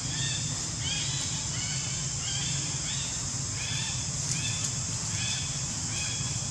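A series of short, arching animal calls, about one or two a second, over a steady high hiss.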